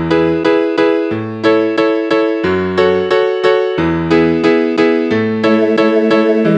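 Instrumental piano music: notes and chords struck in a steady rhythm of about three a second over a moving bass line.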